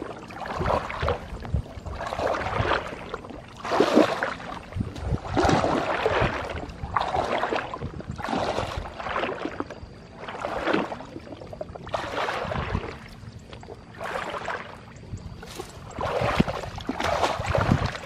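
Wading footsteps through shallow muddy water among tall rushes: a slosh and a swish of reed stems with each step, about one step every second or so.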